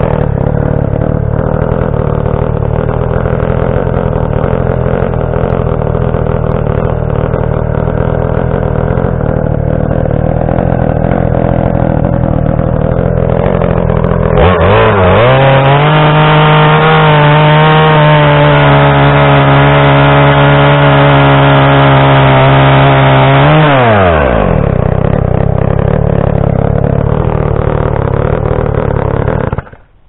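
Two-stroke gas chainsaw running at high throttle while cutting into a timber column. About halfway through its pitch rises sharply and holds high and steady for several seconds, then falls back. The engine shuts off just before the end.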